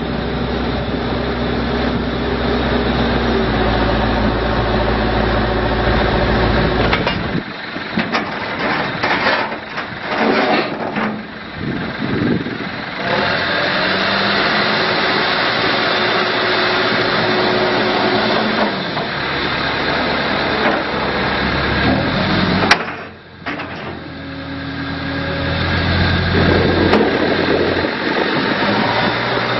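Diesel engine of a 2004 Case 580M Series 2 backhoe loader running. It is steady at first, then goes uneven and broken for several seconds, settles again, and rises in speed near the end. A single sharp click comes about two-thirds of the way in.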